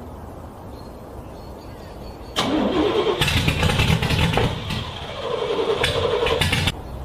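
Car engine being cranked on its starter in freezing cold, struggling to start. The cranking begins about two and a half seconds in and stops abruptly near the end.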